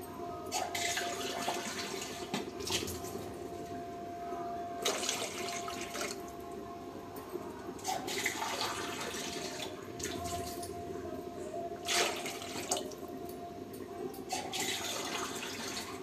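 Water poured from a steel tumbler into a steel pot of rice, in about five separate pours a few seconds apart. A steady low hum runs underneath.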